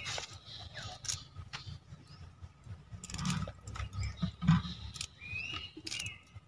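Faint rustling and small snaps of drumstick (moringa) leaves and stems as they are stripped by hand, with scattered soft clicks.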